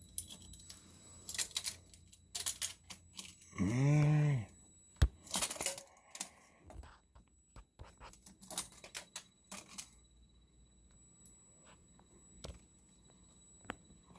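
Handling noise: scattered clicks, knocks and rattles of things being moved and picked up, in several short clusters. Around four seconds in, a brief hummed vocal sound that rises and falls in pitch.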